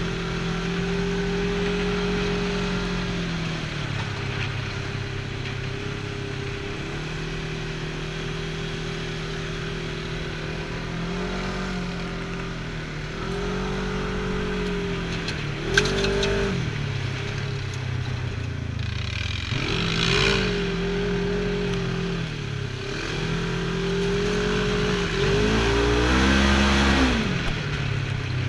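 Side-by-side UTV engine running under way on a dirt trail, its pitch dropping and climbing back several times as the throttle is eased off and reapplied. There is a single sharp knock about halfway through, and a louder rush of rattle and noise near the end as the engine picks up again.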